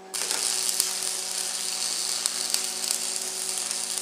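Stick-welding arc from a 7014 rod on half-inch rebar, crackling and hissing steadily with sharp spitting pops. The arc strikes suddenly just after the start.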